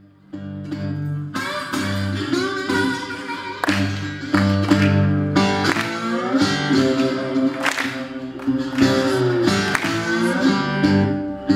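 Metal-bodied resonator guitar fingerpicked in a slow blues intro: a repeating bass line under plucked treble notes, some of which bend in pitch.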